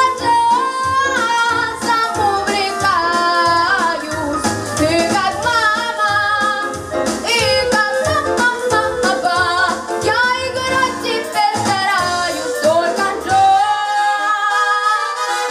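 Young female vocalist singing a jazz song into a microphone, amplified over a recorded backing track with a steady bass and drum beat. Near the end the bass and drums drop out under a held note.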